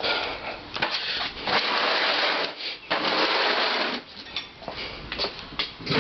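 Items being kicked and dragged out of the way across a floor: a few long scraping, rustling stretches with clattering knocks between them.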